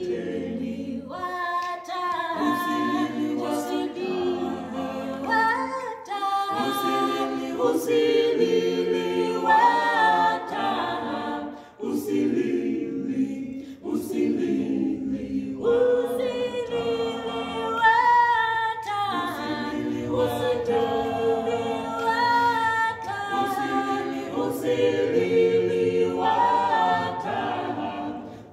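Mixed a cappella vocal quartet, two men and two women, singing a gospel song in close harmony with no instruments, phrase after phrase with short breaths between them.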